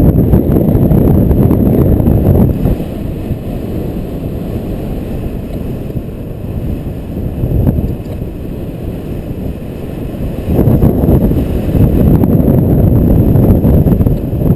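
Wind buffeting the microphone during paraglider flight: a low, rumbling rush that is strong at first, eases about two and a half seconds in, and rises again near the end.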